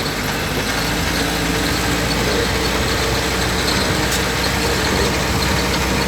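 UAZ engine and drivetrain running steadily as the vehicle drives in second gear, with the old-type gearbox freshly rebuilt.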